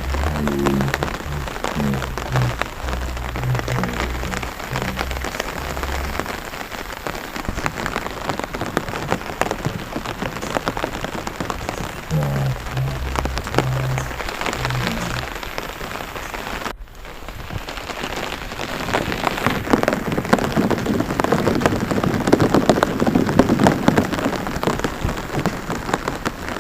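Rain pattering steadily onto a flooded rice paddy, a dense patter of drops. About two-thirds through it drops out for a moment, then comes back louder. Low stepped notes sound under it at the start and again about halfway.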